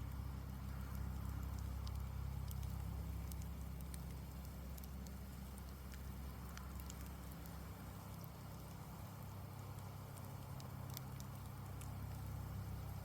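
Campfire burning, with scattered small crackles and pops over a steady low rumble.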